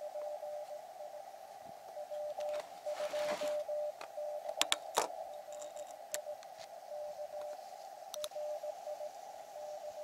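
A Morse code (CW) signal from an Elecraft KX2 HF transceiver on 40 meters: a single-pitch tone keyed in dots and dashes over narrow-filtered receiver hiss. A few sharp clicks come around the middle and once near the end.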